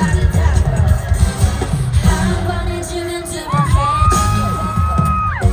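K-pop sung live over a stadium sound system, with a heavy bass beat and a high note held for about two seconds near the end.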